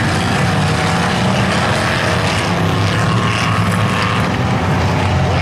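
Engines of several dirt-track stock cars running together on the track in a loud, steady drone.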